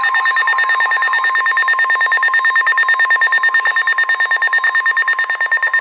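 Electronic emergency alert tone of a mock EAS severe thunderstorm warning: two steady pitches pulsing rapidly, about ten pulses a second, with a ringing, bell-like quality. It stops abruptly near the end.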